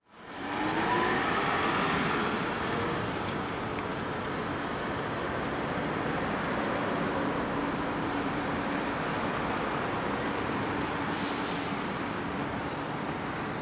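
Road traffic passing along with a G:link light-rail tram running by on its street track. The sound fades in at the start, a rising whine from an accelerating vehicle comes through in the first couple of seconds, and a steady hum follows later on.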